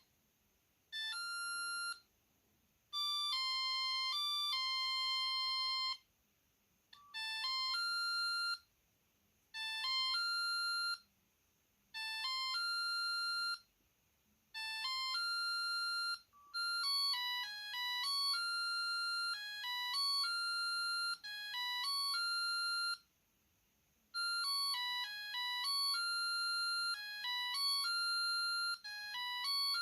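Mitsubishi MT-230 mobile phone playing its built-in ringtones one after another: pretty basic beeping melodies, one note at a time, each broken off by a short silence before the next one starts. The last two play as longer runs of melody.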